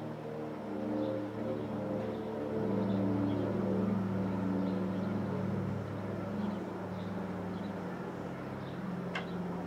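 Douglas DC-3's two radial piston engines droning steadily overhead, loudest three to four seconds in and then easing slightly. A short sharp click near the end.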